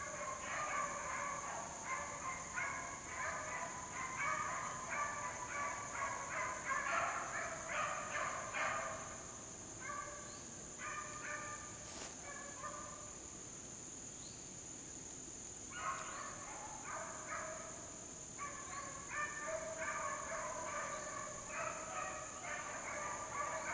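A pack of beagles baying on a rabbit trail, several hounds giving tongue in quick overlapping calls. The calls break off for a couple of seconds past the middle, then start again.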